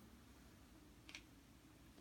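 Near silence: room tone, with one faint, brief click a little over a second in.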